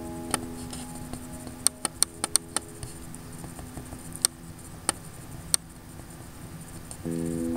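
Laptop mouse buttons clicking about ten times, irregularly, with a quick run of five or so clicks around two seconds in. Soft acoustic guitar music fades away underneath and comes back louder near the end.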